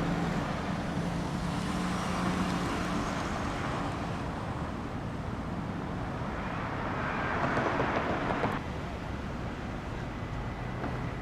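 Road traffic noise with a low engine hum, swelling as a vehicle passes about seven to eight seconds in and dropping off sharply just after.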